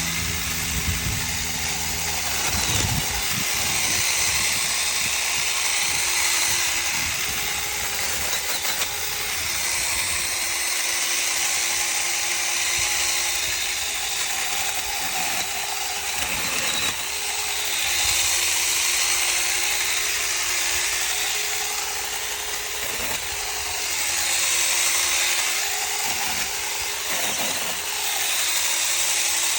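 Small cordless electric mini chainsaw running continuously with a rattling chain hiss, its motor pitch dipping and recovering every several seconds as it bogs into wood while cutting.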